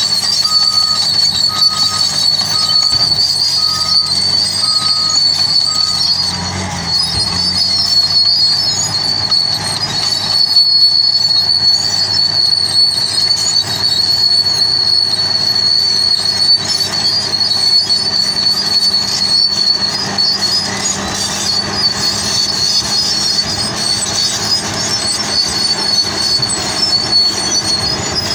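Tracked bulldozer's engine running, with a steady high-pitched squeal over it the whole time. A regular beeping backup alarm sounds for the first six seconds.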